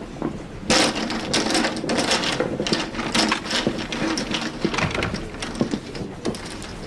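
Saloon crowd noise starting suddenly about a second in: a low murmur of voices under rapid clattering and rustling.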